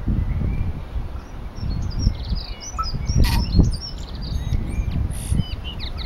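Tui singing: a quick run of short, high whistled notes and slurred glides, starting about a second and a half in, with two sharp clicks mixed in. A low, uneven rumble runs underneath.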